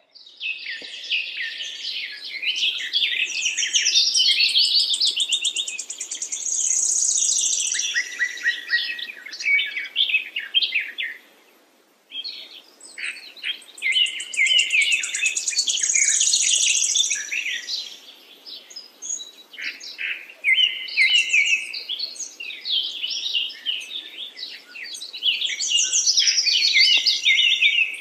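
A flock of small caged finches chirping and twittering over one another, with fast high trills mixed in. The chatter is continuous apart from a brief lull about eleven seconds in.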